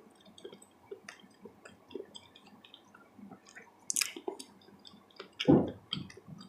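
Close-miked mouth sounds of someone eating: wet chewing with small lip smacks and clicks, a sharper smack about four seconds in, and a short, louder low sound about five and a half seconds in.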